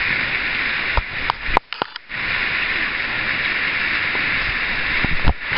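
Steaming mud pot bubbling and hissing steadily, with a few sharp clicks and a short drop-out between one and a half and two seconds in.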